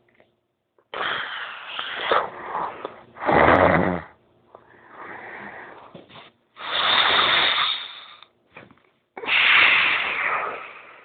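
A sleeping person snoring: a run of about five noisy breaths, each one to two seconds long with short pauses between, the loudest about three and a half seconds in.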